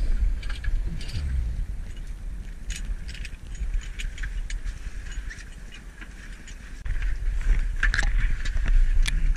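A steady low rumble with scattered clicks, knocks and rattles, the handling noise of a body-worn action camera being jostled about among hunting gear.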